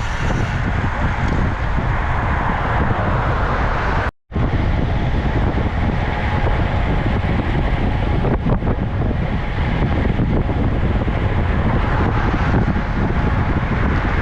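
Wind rushing over the microphone while riding a bicycle: a steady, loud noise heaviest in the low end. It cuts out briefly about four seconds in.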